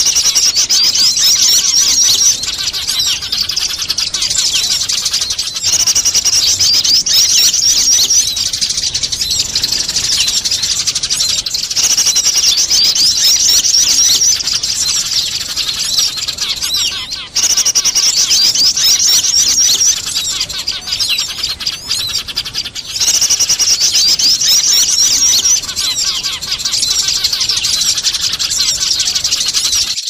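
Bird-lure recording of Eurasian tree sparrows fighting, their agitated chattering mixed with other small birds' calls. The loud, fast chattering comes in bursts of about two to three seconds, roughly every six seconds, with quieter calls in between.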